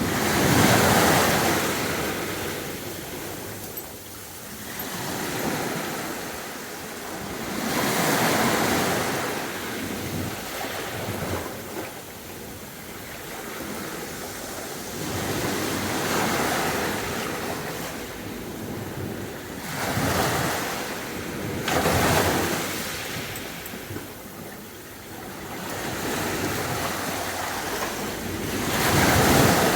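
Sea waves breaking and washing up a beach, each one swelling and then fading away, about six surges.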